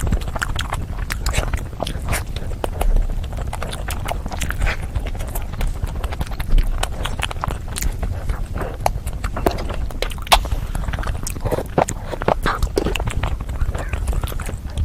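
Close-miked eating: chewing and mouth sounds with many irregular wet smacks and clicks throughout.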